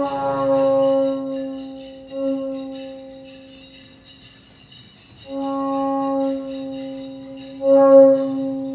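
Live experimental music: a held, pitched note sounds three times, the last swell loudest near the end, over a continuous high jingling of bells.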